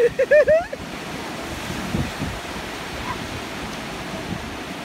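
Ocean surf washing onto the beach, a steady rush with wind on the microphone. In the first second a child's voice gives four short high cries.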